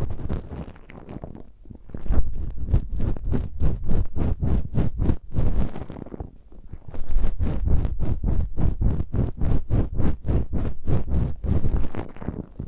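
Ear pick scratching in quick, even strokes, about five a second, in two runs with a short pause around the middle.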